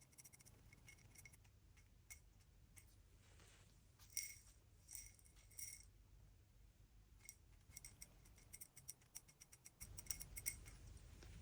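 Faint, irregular small clicks and ticks of a pigeon pecking at seed, over near-silent room tone.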